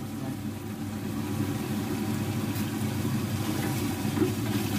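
A steady low mechanical hum fills the kitchen, with a few faint scrapes of a spoon stirring curry in a metal pot.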